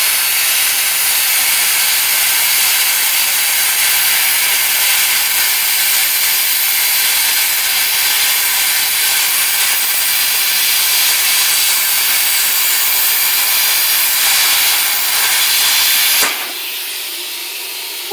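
Lotus LTP5500D plasma cutter cutting through 3/4-inch steel plate: a loud, steady hiss of the arc and air jet. The arc cuts out about two seconds before the end, leaving a fainter hiss.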